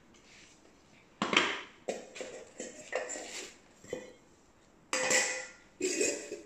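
Hard objects clattering and knocking: about seven separate knocks with short ringing, starting about a second in.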